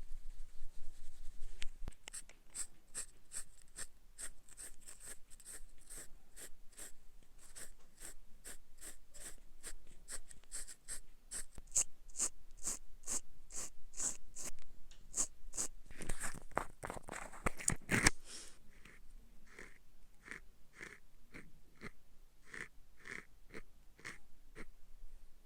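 Close-up ASMR makeup-application sounds: short, regular scratchy strokes of a makeup tool, about two or three a second. A denser, louder rustle comes about two-thirds of the way in, then the strokes go on more slowly and sound duller.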